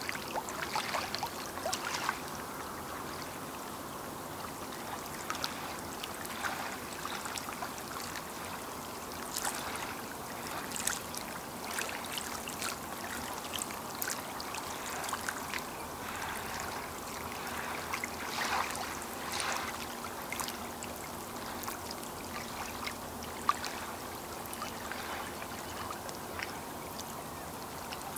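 Small lake waves lapping and splashing irregularly against the shore, with soft trickling between the splashes.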